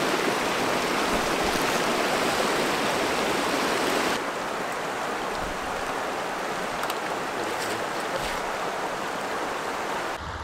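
Creek water rushing over rocks, loud for the first four seconds, then quieter from about four seconds in, with a few faint ticks.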